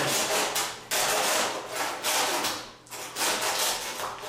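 Hand saw cutting through a hanging deer's hind-leg bone in repeated rasping back-and-forth strokes, about one a second.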